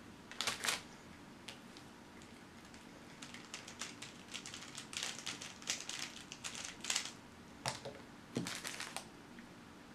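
A 3x3 puzzle cube being turned fast, a run of quick clicks through the middle, with a paper food wrapper crinkling near the start and again near the end.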